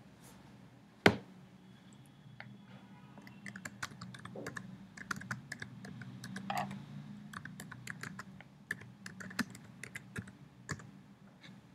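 Typing on a computer keyboard: one sharp click about a second in, then an irregular run of key clicks, over a faint low hum.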